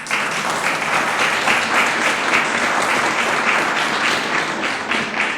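Audience applauding steadily, welcoming a speaker to the podium, the clapping easing slightly near the end.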